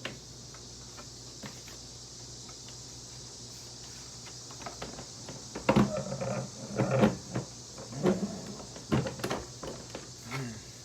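Knocks and clatters of an unplugged upright Hoover vacuum cleaner being handled, its plastic parts bumped and moved in a loose burst starting about halfway through, over a steady hiss.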